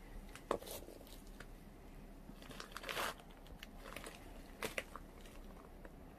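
Irregular crunches and clicks of someone moving about on a gravel floor while handling the camera, with one louder, longer crunch about three seconds in.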